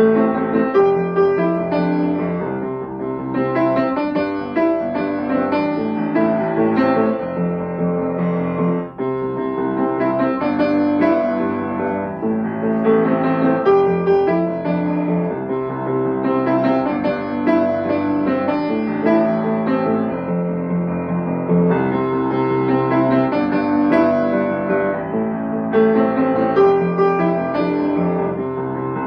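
Kawai upright piano played solo, a continuous flow of melody over chords with one momentary break about nine seconds in.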